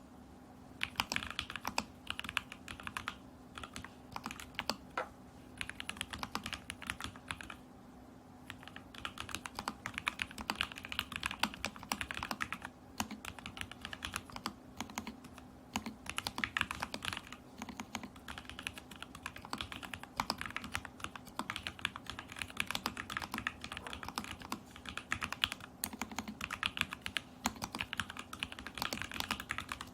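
Continuous typing on a stack-mounted acrylic Alice-layout mechanical keyboard with lubed and filmed Lavender switches and a tape-modded PCB. The keystrokes come in quick runs with a few brief pauses.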